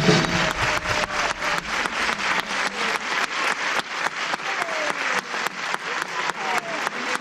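Audience applauding, with one nearby pair of hands clapping a quick, even beat of about four or five claps a second. The last of the dance music dies away in the first half second.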